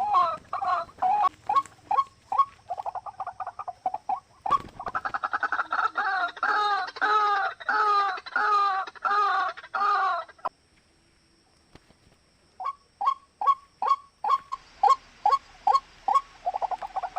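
A bird calling over and over: first a quick series of short notes, then a louder run of down-bending notes about twice a second. About ten seconds in the calls stop for roughly two seconds, then short sharp notes start again.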